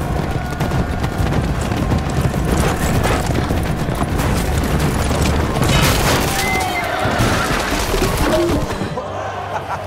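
Horses galloping in a joust, with a horse whinnying, over dramatic film music.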